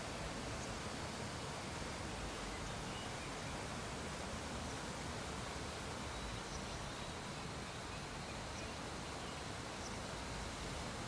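Steady faint hiss of background noise, with a few very faint, scattered ticks.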